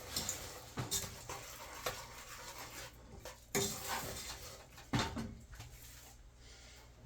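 A utensil stirring homemade chocolate sauce (butter, sugar, cocoa and milk) in a saucepan, with a few knocks of the utensil against the pot.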